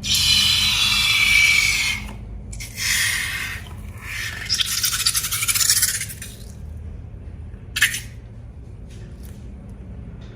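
Hands working balloons and slime, making scraping, rubbing sounds in three long stretches, then a single sharp click.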